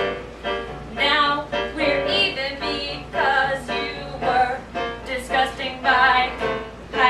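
A performer singing a song live over instrumental accompaniment.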